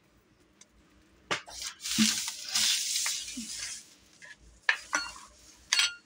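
Dishes being handled: scraping and rustling from about two seconds in, with sharp clinks and knocks near the end as the plate of rice is carried and set down.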